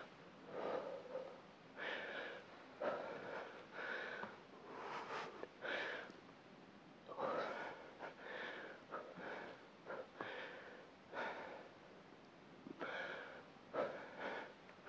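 A woman's hard breathing under exertion during push-ups, short exhales and inhales about once a second.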